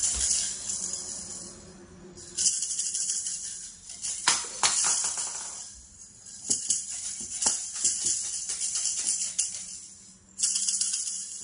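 Small plastic toy maracas shaken by a toddler: bouts of rattling that stop and start, with a few sharp knocks in between, around the middle.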